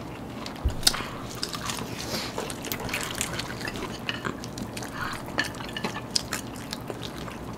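Close-up eating sounds: people chewing crispy fried chicken, with irregular small crunches and wet mouth clicks and smacks.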